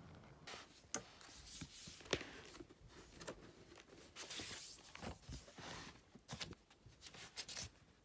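Paper and card being handled at a desk: an irregular run of rustles and swishes with several sharp clicks and taps.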